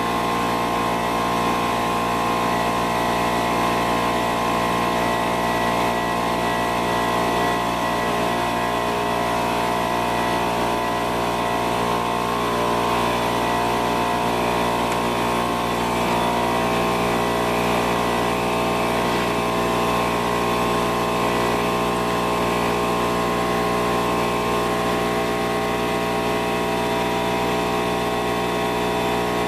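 A machine running steadily at one constant speed, giving an unbroken hum with several fixed tones.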